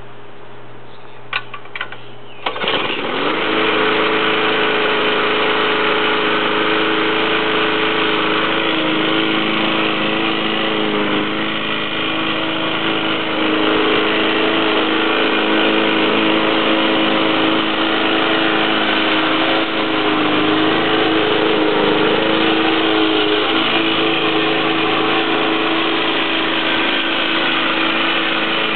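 Petrol engine of a 20-inch Yard Machines rotary lawn mower starting about two and a half seconds in, after a few clicks, then running steadily with small wavers in speed.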